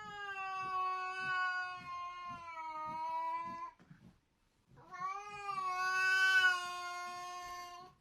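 A domestic cat yowling: two long, drawn-out calls of about four seconds each, held at a nearly steady pitch, with a short break between them.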